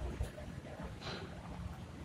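Faint handling noise from a plastic ice-cream cup being turned in the fingers: a low rumble with a light tap near the start and a soft rustle about a second in.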